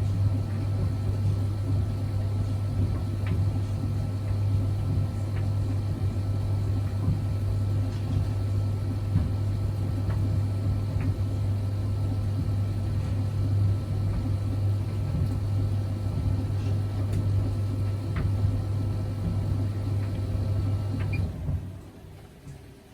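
Zanussi Jetsystem IZ16S washing machine running a high-speed spin, a loud steady motor drone with a low hum and a constant high whine. It cuts out sharply near the end.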